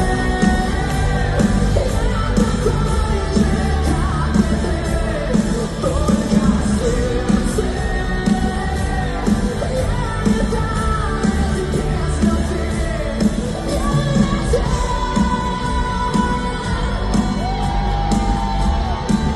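Live rock band playing with a male singer holding long sung notes over a steady drumbeat, in a large concert hall's echo.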